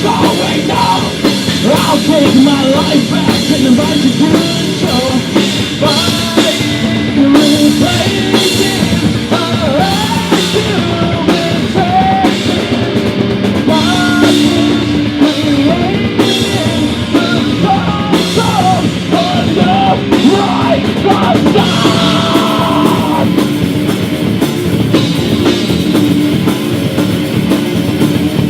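Rock band playing loud, with a drum kit and electric guitars; a bending melodic lead line rides over it from about six seconds in until a little past twenty-two seconds.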